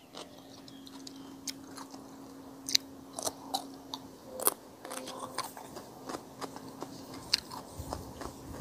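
Close-miked eating: chewing, with scattered mouth clicks and smacks, over a faint steady hum.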